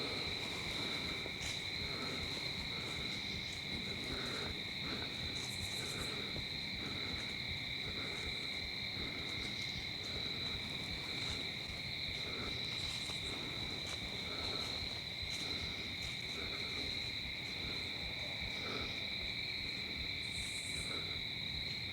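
Evening insect chorus of crickets, a steady high trilling, with a faint short call repeating a little under once a second beneath it.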